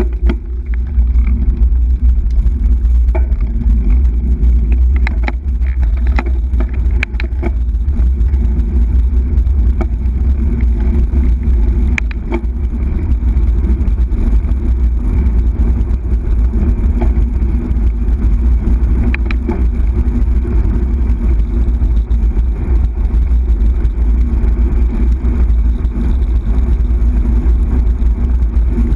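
Loud, steady wind buffeting and road rumble on a bicycle-mounted camera while riding a road bike, with a few sharp clicks in the first twenty seconds.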